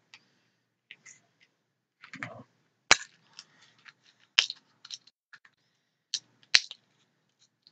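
Plastic snap-shut lids of a one-day pill organizer strip being opened one by one: three sharp snaps, one for each of the morning, noon and night compartments, with smaller clicks and taps of handling between them.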